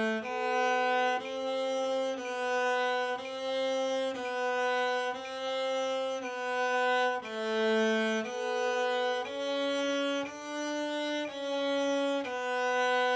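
A bowed string instrument playing a slow chromatic study, one sustained full-bow note about every second, stepping among A, C sharp and C natural.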